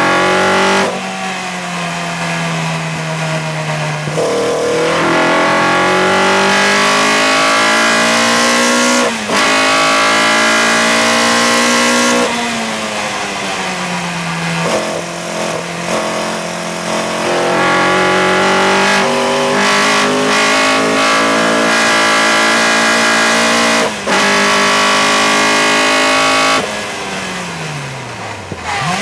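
Open-cockpit race car's engine at full throttle, its note climbing through the revs and cut by short dips at several gear changes. It eases off and falls in pitch near the end as the car slows for a corner. A steady rush of wind runs under it.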